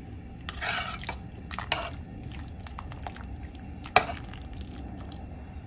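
A metal ladle stirring thick soup in a stainless-steel pot, with soft liquid sloshing and a few light scrapes, and one sharp clink of metal on the pot about four seconds in.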